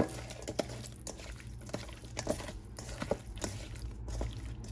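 Raw cabezon pieces being mixed by hand with salt, oil and pepper in a stainless steel bowl: wet squishing with scattered small clicks and taps of fish on the steel, one sharper tap at the start.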